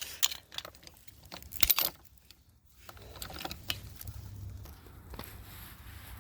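Padlock being worked with metal picks or keys: scattered sharp metallic clicks and light jingling, with a cluster of louder clicks a little under two seconds in and fainter ticks after.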